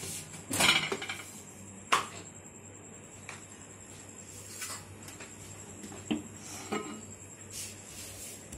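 Kitchen dishes and utensils clinking and knocking as they are handled: a string of separate knocks, the loudest about half a second in and another sharp one near two seconds.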